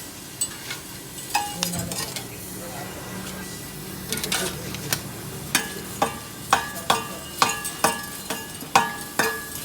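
Repeated metal strikes on a car silencer's steel shell, each one ringing briefly. They are sparse at first and come about two a second in the second half. The silencer is being knocked to loosen and clear the clogged material inside it.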